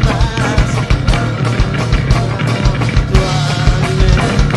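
Grunge band playing a song: electric guitar, bass and drums together with a steady beat.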